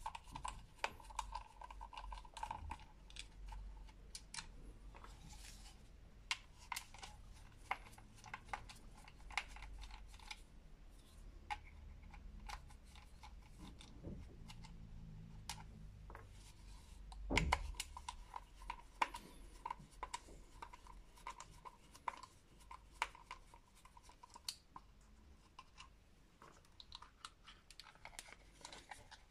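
Plastic battery-pack housing being unscrewed with a hand screwdriver and pried apart: scattered light clicks, ticks and scrapes of the screwdriver and plastic case, with one louder knock about seventeen seconds in.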